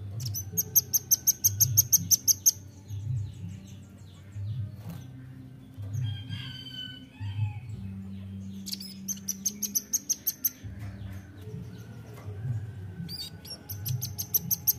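Velvet-fronted nuthatch calling in three runs of rapid, sharp high chip notes, about seven notes a second, each run lasting about two seconds: one at the start, one about nine seconds in and one near the end, with softer calls between.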